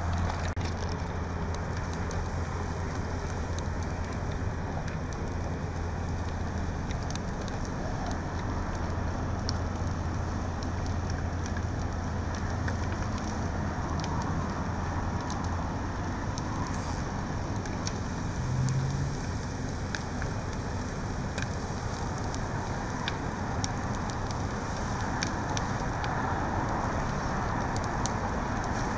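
Vehicle fire burning: a steady rush of flames with scattered crackles and pops. Under it runs a low steady hum that fades out a little past halfway.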